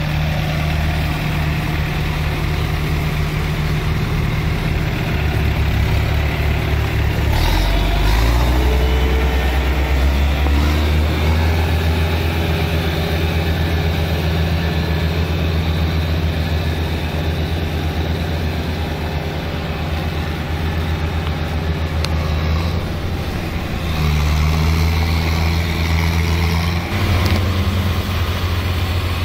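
Diesel farm tractor engines running under load while working a flooded paddy field. The steady engine note steps up in pitch about a quarter of the way in and shifts again near the end as the throttle changes.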